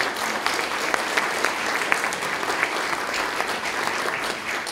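Audience applauding, thinning out near the end.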